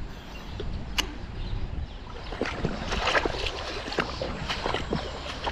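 Water sloshing and splashing in short irregular bursts, thickest in the middle, with a couple of sharp clicks over a low steady rumble.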